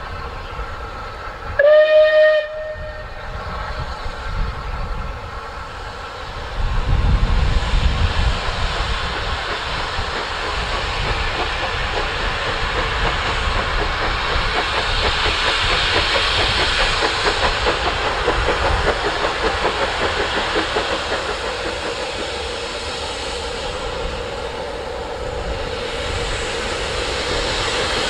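A steam locomotive whistle sounds once, about two seconds in, a single steady note lasting about a second. Then the working exhaust and running noise of a double-headed train behind two rebuilt Bulleid Pacific steam locomotives grows louder as it approaches, with a steady hiss and rumble.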